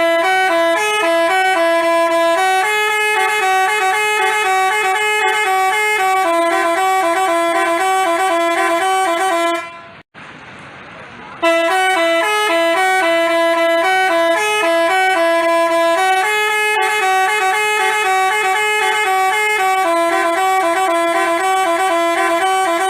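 Telolet basuri musical bus horn playing a fast tune of stepping notes. It breaks off for about a second and a half near the middle, then plays the same tune again.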